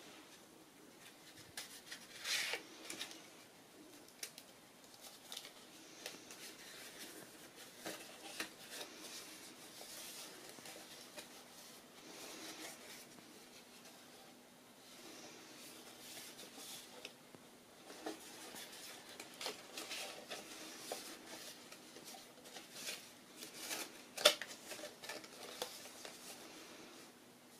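Folded paper flexigon being opened and flexed by hand: irregular paper rustling and crinkling as the flaps fold over. A sharp paper snap comes about three-quarters of the way through.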